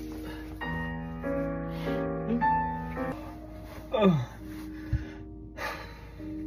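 Background music of sustained keyboard chords, with a short sound sliding down in pitch about four seconds in.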